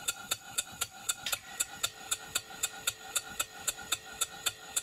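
Stuart Turner 5A model steam engine running under load with very even exhaust beats, about four a second with no skipped beats. The evenness of the beats is the sign that the slide-valve timing is set right. A faint steady tone joins about a second in.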